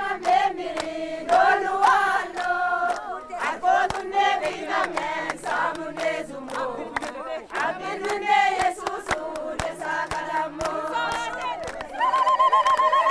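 A crowd singing together in unison, with steady hand clapping. Near the end, loud, high, wavering ululation breaks out over the singing.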